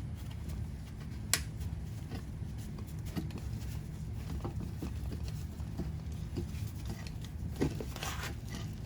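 2-inch threaded pipe being screwed by hand onto a sewage pump's taped outlet: small clicks and rubbing from the threads and handling, with one sharp click about a second in and a few louder clicks near the end, over a steady low rumble.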